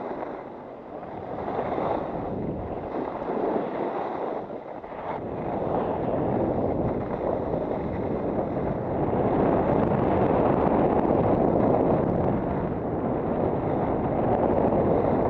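Wind rushing over the microphone of a skier's camera while skiing downhill, mixed with skis sliding over packed snow; the rushing grows louder about nine seconds in.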